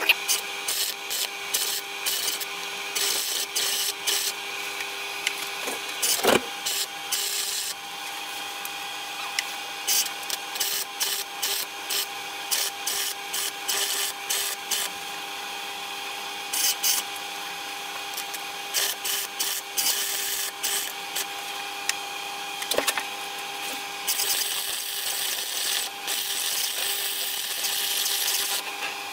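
Electric arc welding on a car's steel floor pan: the arc crackles in a run of short bursts of a second or less, then in a longer continuous weld over the last few seconds. A steady hum sits underneath, and there is a single sharp knock about six seconds in.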